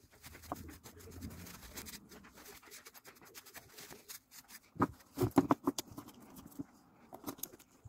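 Tissue paper rubbing on a blender motor's armature as it is wiped clean, then a quick run of clicks and knocks from the plastic motor parts being handled, loudest about five seconds in, with a few more clicks near the end.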